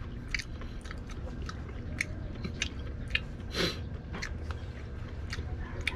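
Close-up chewing and wet mouth sounds of a person eating cooked diamond squid: short clicks a few times a second, with one longer, louder sound a little past the middle.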